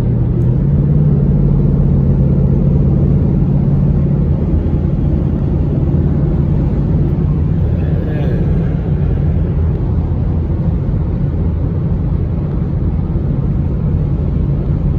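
Steady engine drone and road rumble heard from inside a car cruising at highway speed, with a steady low hum through the first four seconds or so.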